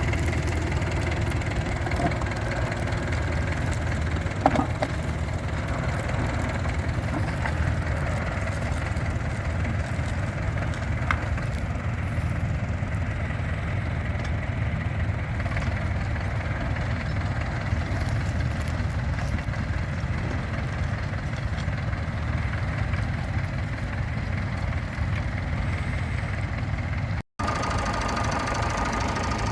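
Tractor engine running steadily. About 27 seconds in there is a brief break, after which an engine keeps running with a steady whine added.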